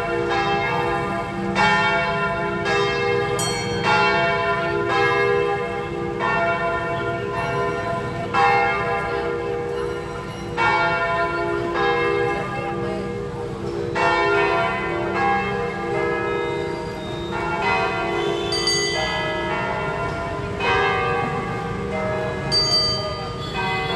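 Church bells of St. Joseph's Cathedral ringing, with only part of the set of bells sounding. The strokes fall about every one to two seconds in an uneven rhythm, and each rings on under the next.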